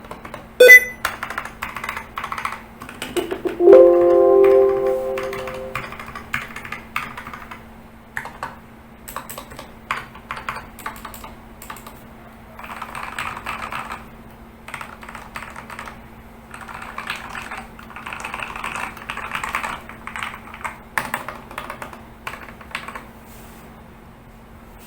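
MyBenben DMMK02 TKL mechanical keyboard with freshly lubed switches, keys clacking in bursts of typing. A sharp click comes under a second in and a short ringing tone that fades comes about four seconds in, over a faint steady hum.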